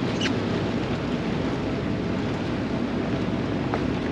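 A boat's engine running steadily while underway, heard from on board as a constant low rumble with the wash of water around it.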